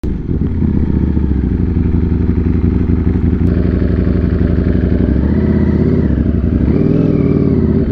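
Ducati Streetfighter V4's V4 engine running at low revs as the bike rolls slowly behind traffic: a steady low rumble whose pitch wavers a little in the second half.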